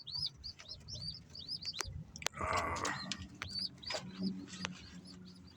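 Birds chirping in a steady run of short, high chirps, several a second, with a couple of sharp clicks and a brief rustle about two to three seconds in.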